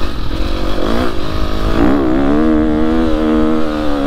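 KTM motocross bike engine revving in short swells, then held at steady revs under load on a sandy climb, over a low rumble.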